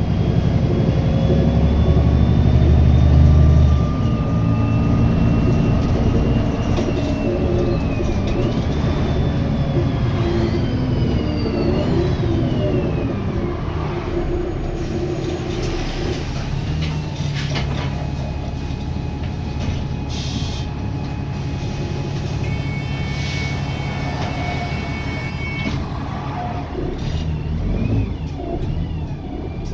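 Wright Gemini 2 double-decker bus on a VDL DB300 chassis driving, its engine running under a whine that glides up and down in pitch as the bus speeds up and slows. This whine is the weird acceleration noise the bus makes. The engine's low rumble drops about four seconds in.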